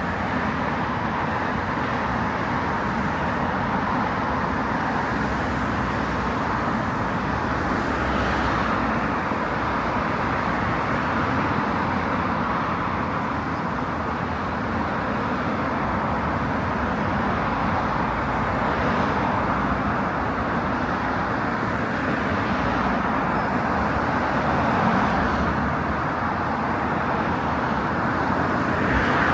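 Steady road traffic noise: a continuous hum of cars' engines and tyres on a busy city road, swelling slightly now and then.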